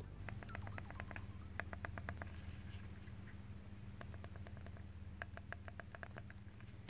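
Buttons on a Hisense TV remote being pressed with the thumb, a run of short, irregular clicks in quick clusters.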